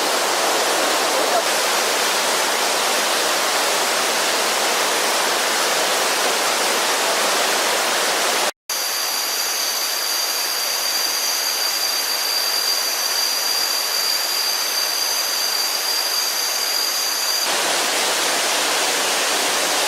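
Phlio Waterfall's rain-swollen stream rushing and splashing in a steady torrent, running hard after days of monsoon rain. The sound cuts out for an instant near the middle. Over the second half a steady high-pitched whine rides on the water, then stops a couple of seconds before the end.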